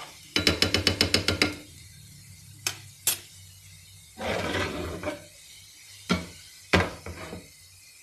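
Steel spoon clattering against a frying pan while stirring a garlic and chili-flake tadka: a quick run of about ten taps in the first second and a half, then single knocks. About four seconds in, a longer scraping rattle as the pan is shifted on the gas burner's grate.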